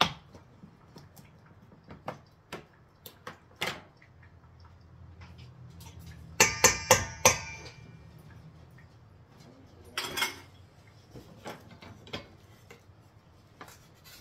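Kitchen utensils and dishes knocking and clinking during food preparation, with a quick run of bright ringing clinks about six and a half seconds in and a short scrape-like clatter about ten seconds in.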